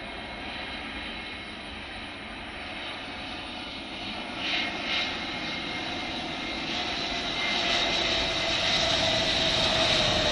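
An airliner's engines on approach, growing steadily louder as it nears: a rushing roar with a high steady whine and a lower tone that slowly falls in pitch.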